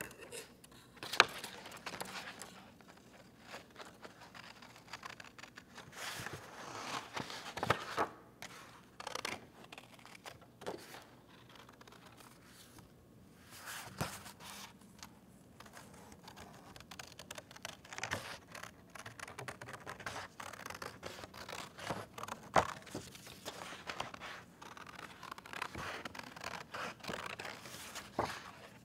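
Scissors snipping through cardstock in irregular cuts, with the paper rustling as the sheet is turned between cuts.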